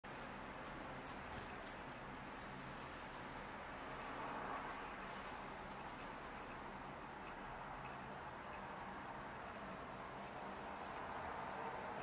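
Northern cardinal giving sharp, high chip notes at irregular intervals, about a dozen in all, the loudest about a second in. A faint steady background noise runs underneath.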